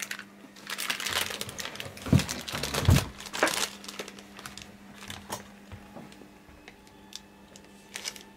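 Crinkly packaging being handled and crumpled: irregular crackles and rustles, busiest and loudest in the first three seconds, then sparser.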